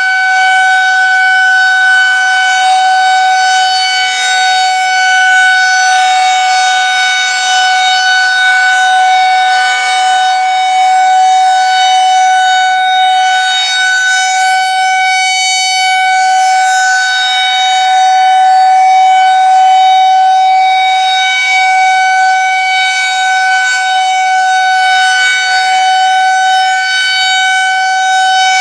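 Federal Signal 2001-130 rotating electromechanical outdoor warning siren sounding a steady alert tone during a test activation. It holds one pitch throughout, and its loudness swells and eases slightly as the rotating head turns.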